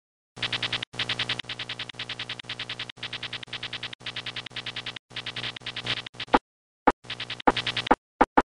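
Synthesized electronic music: a pitched tone pulsing fast and evenly, chopped into sections that start and stop abruptly, with a few short separate blips near the end.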